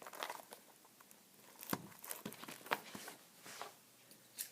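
Light rustling and irregular soft clicks and taps of trading-card packs and cards being handled.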